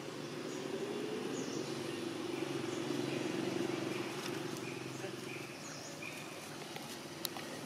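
A steady engine hum that swells over the first few seconds and then eases slightly, with faint bird chirps and a single click near the end.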